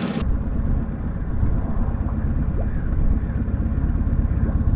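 Boat motor running at trolling speed, a steady low rumble.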